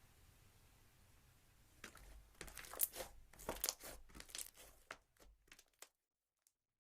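Slime being pressed and worked by hand, giving a run of irregular crackling clicks and small pops that stops suddenly near the end.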